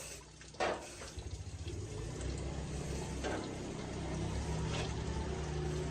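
A knock, then the repaired concrete mixer's motor starts up about a second in, pulsing at first and then settling into a steady low running hum.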